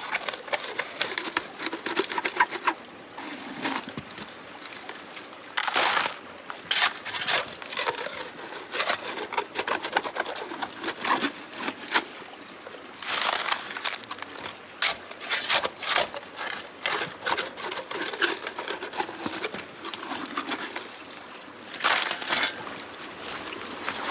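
Shovel digging into wet creek gravel and dropping gravel and stones into a plastic gold pan: irregular crunching scrapes and rattles over the faint running of a creek.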